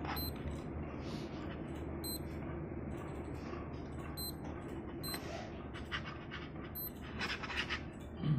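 North Edge Apache digital watch giving short, high electronic beeps as its buttons are pressed, five in all at uneven gaps, with light handling clicks near the end. Beneath them is a steady low hum.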